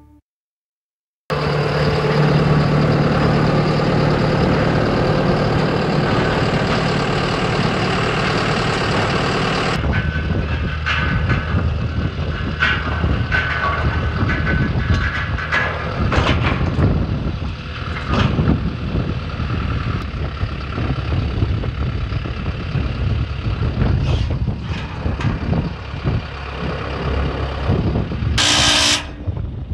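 Heavy equipment engine running steadily, then a rougher, varying working sound from about ten seconds in, with repeated metal clanks and knocks. A short hiss comes near the end.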